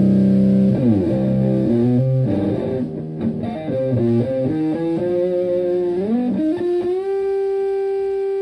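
Stratocaster played through an Elk Super Fuzz Sustainar fuzz pedal into a Twin Reverb-style amp. A held low note gives way about a second in to a fuzzy lead line of single notes with string bends, and near the end a bend settles into one long sustained note.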